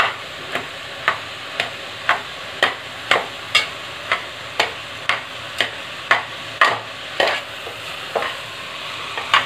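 Noodles and vegetables stir-frying in a pan, sizzling steadily. A stirring utensil strikes and scrapes the pan about twice a second, and the strokes stop near the end.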